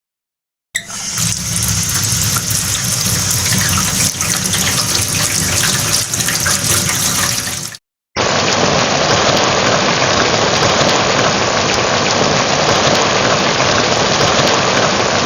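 Two separate steady recordings with a short break between them: a kitchen faucet running, and food frying in a pan.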